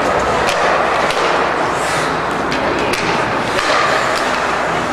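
Ice hockey play in an arena: a steady noisy din of skating and crowd, broken by several sharp clacks of sticks and puck.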